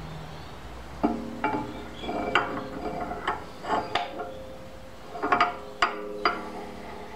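A metal boring bar is slid by hand through the bore of a steam locomotive cylinder casting on a lathe. It knocks and clinks against the metal in about a dozen irregular strikes, each ringing briefly.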